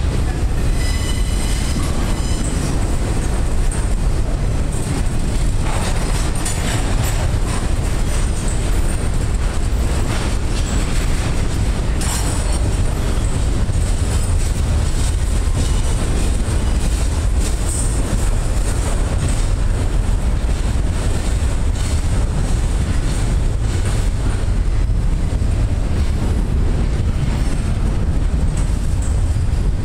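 Double-stack intermodal container train rolling past close by: a steady, loud rumble of wheels and well cars on the rails. A brief high-pitched squeal comes about a second in, and occasional clunks follow.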